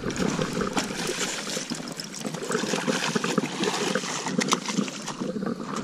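Hooked coho salmon splashing and thrashing in shallow water at the bank as it is pulled ashore, a run of many quick slaps and sprays.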